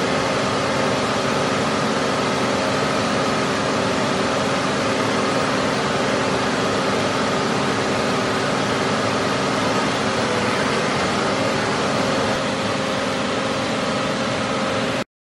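CBC HS 90/21 hydraulic CNC press brake running: a steady hum and whine from its hydraulic pump and motor, with several fixed tones over a hiss. It cuts off abruptly near the end.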